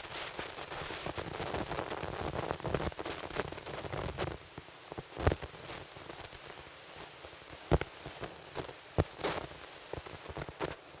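Footsteps on a stage floor as a woman walks forward across the stage: a handful of separate sharp steps in the second half. Before them comes a soft rustling of the hall.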